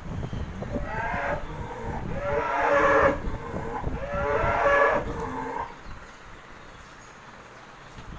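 Cow mooing three times, each call about a second long, the second and third the loudest.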